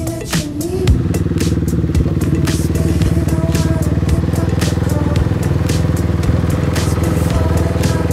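Rally motorcycle engine running steadily at idle, with a fast even pulse. A couple of thumps come in the first second.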